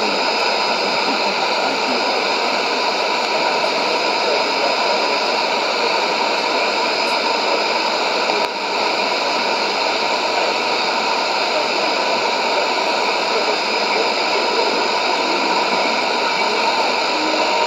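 Shortwave AM static from a Sony ICF-2001D receiver tuned to 6160 kHz: a steady hiss of a weak signal with a faint steady whistle, dipping briefly about eight and a half seconds in.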